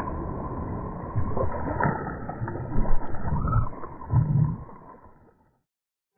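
A released carp splashing and thrashing in shallow river water as it swims off from the landing net, with water sloshing, heard muffled. Several heavy splashes come between about one and four and a half seconds in.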